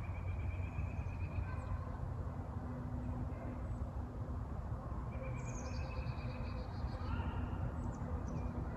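Songbirds calling in the woods: a thin high note near the start and a quick run of high notes stepping down in pitch a little past the middle, over a steady low rumble.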